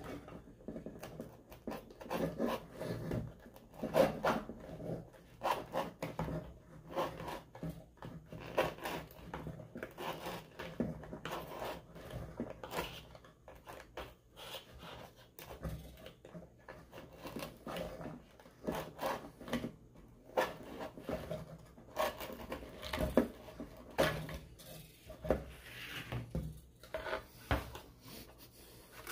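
Rubber surround being peeled by hand off the cone of a Power Acoustik BAMF 15 subwoofer: irregular rubbing and scraping of the glued rubber edge, with a few sharper pulls about four seconds in and again near 23 seconds.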